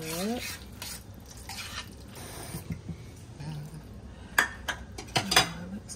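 A utensil clinking and knocking against a cooking pot in a series of small clicks, with the sharpest knocks a little after four seconds in and again about five and a half seconds in.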